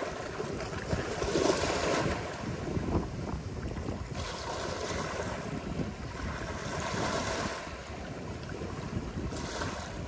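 Ocean waves breaking and washing up a sandy beach. The rush swells about a second in, again from about four to seven and a half seconds, and briefly near the end, over a steady low wind rumble on the microphone.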